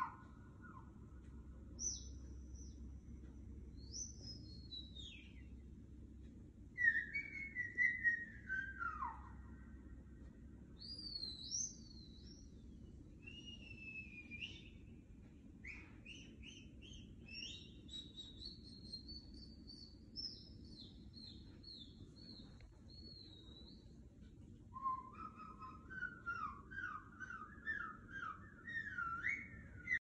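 Whistle sound effects played through TV speakers: a series of separate whistles that slide up and down in pitch, some falling and some rising, ending in a rapid warbling whistle near the end.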